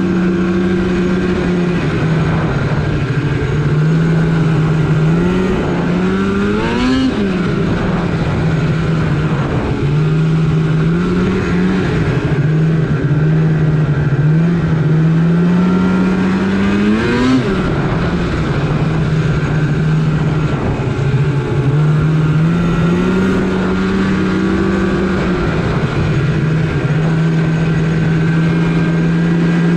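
Snowmobile engine running under way, its pitch stepping up and down with the throttle. It revs up sharply twice, about seven and about seventeen seconds in, then drops back.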